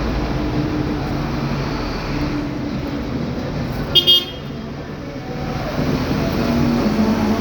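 Street traffic with vehicles running, and a short double toot of a car horn about four seconds in.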